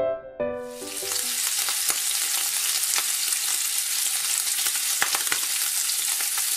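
Sliced wieners sizzling in oil in a frying pan: a steady hiss with scattered pops and crackles. Piano music plays for the first moment and stops as the sizzling comes in.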